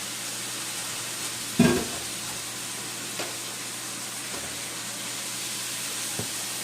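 Instant noodles and shrimp sizzling in oil in a frying pan, a steady hiss, with a loud knock of a utensil against the pan about a second and a half in and a couple of lighter taps later.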